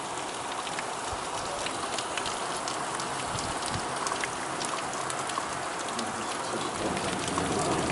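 Heavy rain falling steadily, with many individual drops ticking sharply close by; it swells slightly louder near the end.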